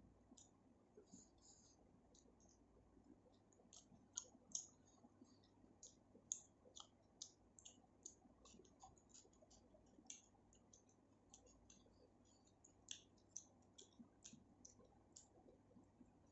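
Close-miked eating sounds: a quick, irregular run of small wet mouth clicks and smacks from chewing, about two or three a second.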